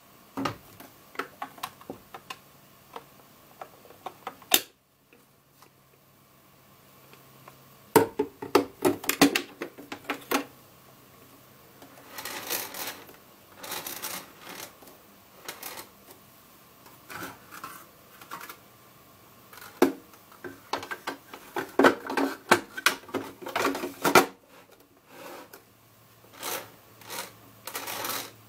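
Irregular plastic clicks, knocks and rattles as a Tchibo Cafissimo Mini capsule coffee machine and its removable water tank are handled, fitted and turned on the base, with two busier spells of clattering.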